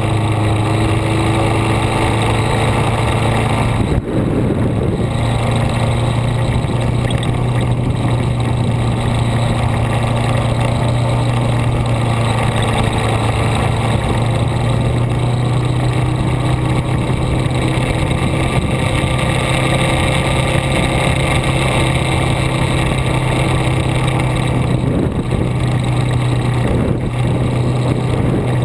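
A vehicle engine running steadily under way, heard onboard with steady road and wind noise; its note changes briefly about four seconds in and again near the end.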